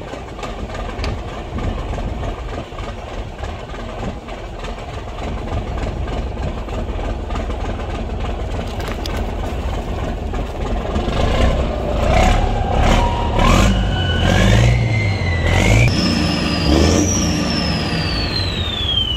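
Cummins 350 marine diesel engine on a test run after a turbo replacement, first running steadily, then revved up more than halfway through with a whine that climbs with the revs. Near the end a high whine falls steadily away as the revs come off.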